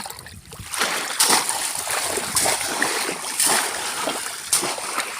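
Shallow water splashing and sloshing, with sharp splashes about once a second.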